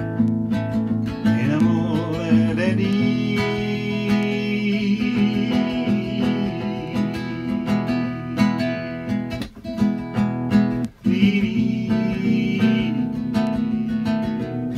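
Acoustic guitar strummed steadily in an instrumental tune. A wavering higher melody line sounds over it twice, about two seconds in and again about eleven seconds in.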